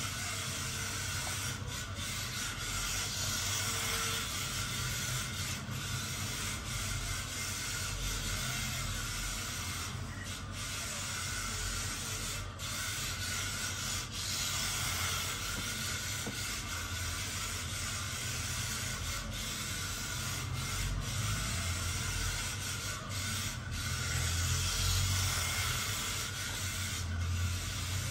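1/28-scale RC drift car sliding its tyres around a printed track mat, a steady rubbing hiss that holds at an even level.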